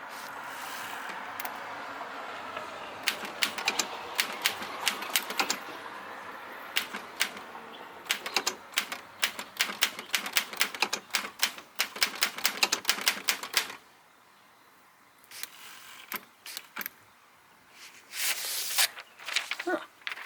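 Manual typewriter, an LC Smith No. 11, being typed on: rapid runs of sharp key clacks with short pauses. After the typing stops there are a few scattered clicks, then a longer rasping sound near the end.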